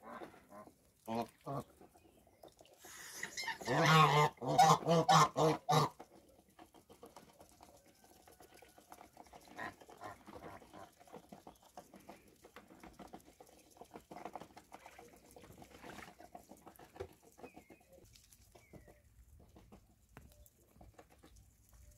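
Domestic geese honking: a loud run of repeated calls about three to six seconds in, then only faint sounds from the flock.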